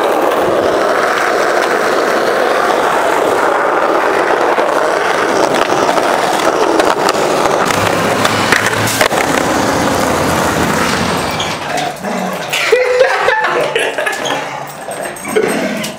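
Skateboard wheels rolling over street asphalt in a steady, loud rolling noise, with a few sharp clacks of the board. After about eleven seconds the rolling stops and gives way to scattered short, irregular sounds.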